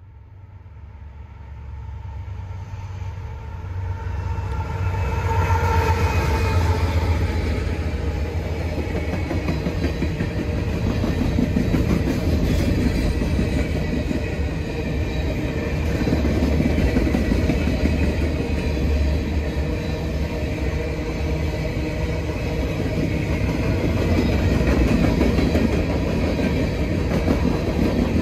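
Freight train of empty steel hopper cars rolling past close by, a steady sound of wheels running on rail with strong low rumble. It grows louder over the first five seconds or so, then holds steady.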